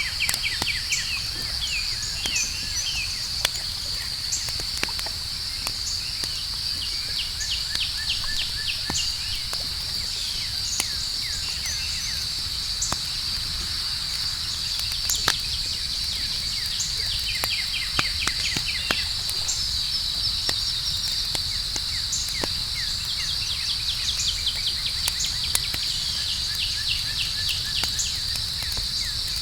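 Outdoor campfire crackling with scattered sharp pops, over a steady high trilling chorus of night insects and a low rumble.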